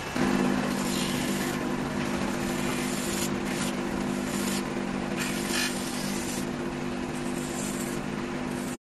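Steady workshop machine hum holding several low tones, with a few brief scraping sounds from the sneaker being handled. It cuts off suddenly near the end.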